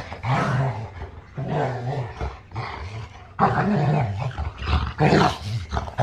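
Adult golden retriever growling in play while wrestling with a puppy: deep, lion-like growls in repeated bouts, the loudest about three and a half and five seconds in. The growls sound ferocious, but this is gentle play, not aggression.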